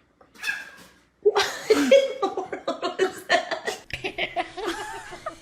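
People laughing in choppy bursts, starting about a second in, after a brief short sound.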